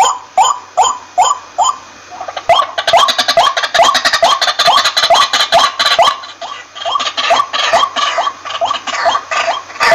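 White-breasted waterhen calling: a steady run of short rising notes, about three a second. After a brief pause near two seconds the calling thickens, with a harsher, rasping layer over the repeated notes.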